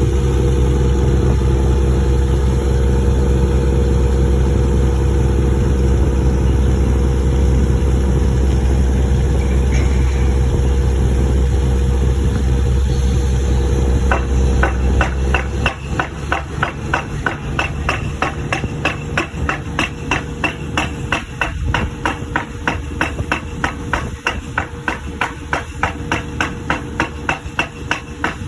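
Pile-driving rig: a heavy engine running steadily, then about halfway through the pile hammer starts striking in a rapid, even train of blows, about two to three a second, as the engine's low drone drops away.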